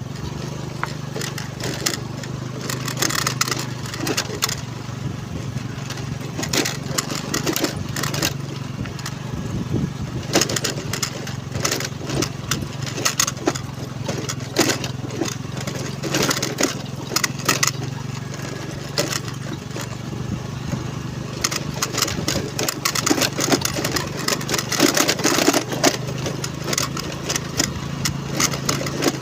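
Honda Navi's small single-cylinder engine running steadily as the bike goes over a rough, rocky track, with frequent knocks and rattles from the bike's body and wheels.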